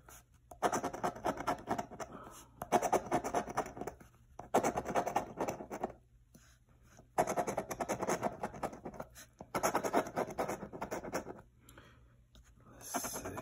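A coin scratching the coating off a scratch-off lottery ticket, in five spells of about two seconds each with short pauses between.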